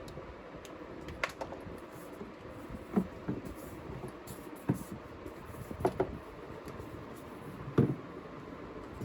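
Steady workshop background noise with about five separate sharp knocks, about a second or two apart, the last one the loudest, typical of hand work on parts in a factory.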